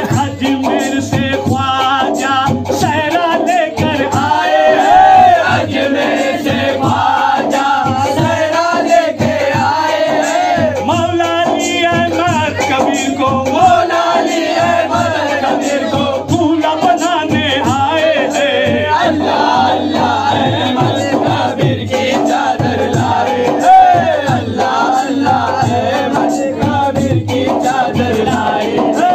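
A group of men singing a devotional chant, led by one man singing into a microphone with the others joining in; the voices waver and bend in a melismatic line.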